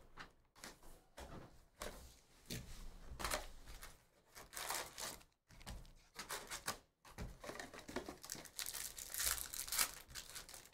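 Wrapping and card packs of a hockey card hobby box being torn open by hand, with irregular crinkling and tearing rustles.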